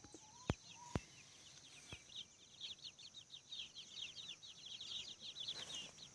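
Young chickens peeping: quick, high-pitched chirps repeating several times a second, growing louder from about two seconds in. Two sharp clicks about half a second apart near the start.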